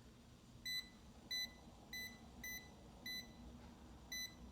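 Klein Tools non-contact voltage detector beeping: six short, high electronic beeps, about one every half-second with a longer pause before the last. The beeping is the pen's signal that it senses live AC voltage in the power board wiring it is passed over.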